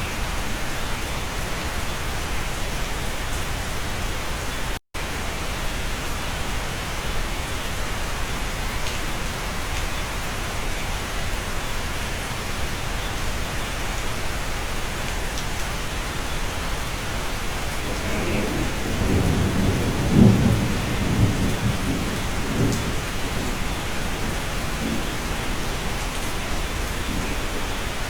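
Steady rain falling, heard from inside a cabin, with a low roll of thunder rumbling up about two-thirds of the way through and fading a few seconds later. The sound cuts out for an instant about five seconds in.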